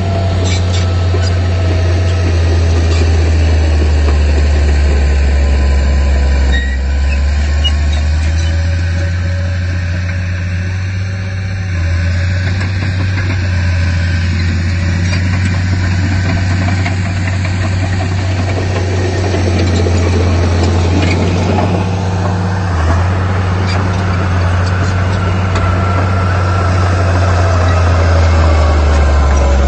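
Heavy diesel engine of earthmoving machinery running steadily with a deep, constant hum, dipping slightly in level about ten seconds in and picking up again.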